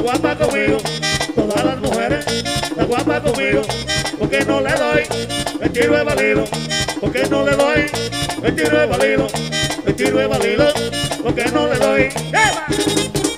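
Live merengue típico (perico ripiao) band playing with no singing: button accordion carrying a quick melody over the scraping güira, tambora drum and a bass line, at a fast, steady dance tempo.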